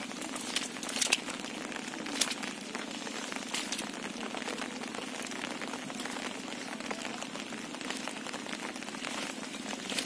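Rustling and small clicks from a wet nylon cast net being handled to free caught fish, over a steady hiss. A few sharper clicks come in the first four seconds.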